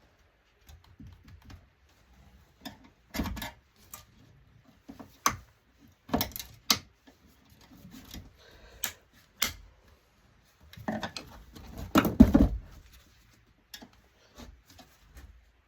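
Irregular clicks, snaps and knocks of plastic and metal parts as an LCD touchscreen monitor is pried and pulled apart by hand, with a louder cluster of clattering knocks about eleven to twelve seconds in.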